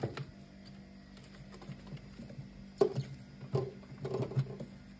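Hands handling the mix bag's plastic connector and hose inside the soft-serve machine's stainless steel cabinet: a sharp click about three seconds in, then a few lighter knocks and rattles, over a faint steady low hum.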